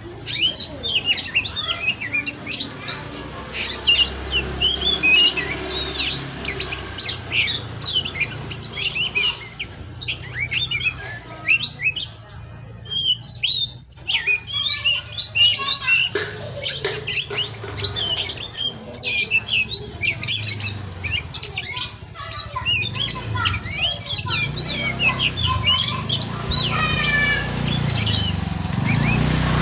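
Oriental magpie-robin (kacer) singing a fast, continuous, varied song of chirps and whistles, with a fast descending run near the end. A low hum runs underneath.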